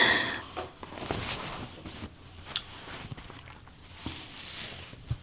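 Soft rustling and handling noises with a few light taps and clicks.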